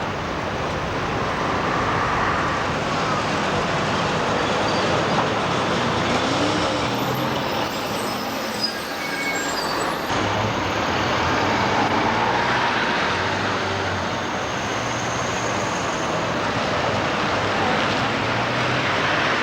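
Street traffic noise: motor vehicles running and passing without a break, their engine hum rising and falling.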